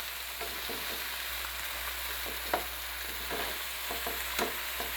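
Flour-coated tilapia pieces sizzling steadily in hot oil and butter in a frying pan, with a few short clicks and pops through it.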